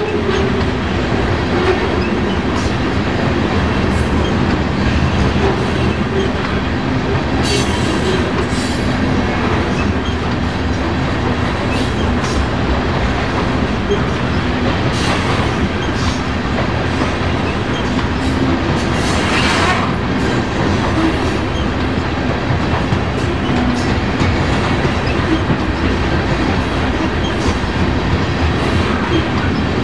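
A Canadian National train's cars rolling steadily past, a continuous rumble with the wheels clacking irregularly over the rail joints.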